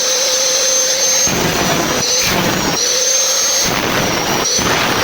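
Large log-cutting saw running with a steady high whine, broken about three times by rougher stretches of cutting noise as the blade takes the wood.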